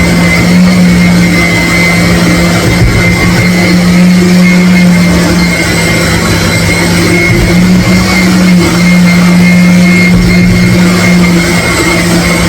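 A motor running steadily with a loud, even hum that holds at one pitch.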